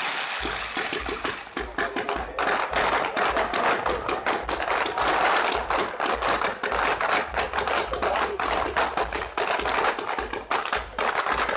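Fireworks crackling: a dense, continuous run of rapid small pops and snaps.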